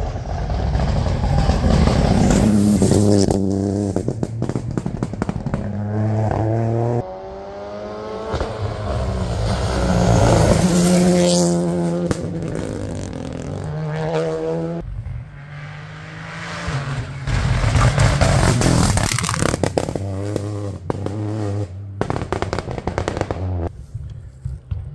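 Rally cars on a special stage, one after another, engines revving hard. The engine note climbs and breaks again and again as the cars shift up through the gears.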